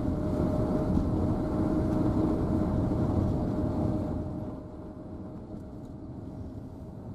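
Engine and road noise of a moving car heard inside its cabin: a steady rumble with a faint steady hum, which drops in level about four and a half seconds in.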